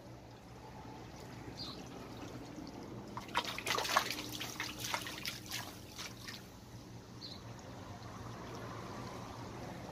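Water trickling, with a cluster of small splashes and clicks about three to five seconds in, over a faint steady low hum.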